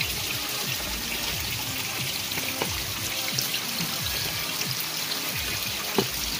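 River water running and trickling steadily, with background music over it. A single sharp knock about six seconds in.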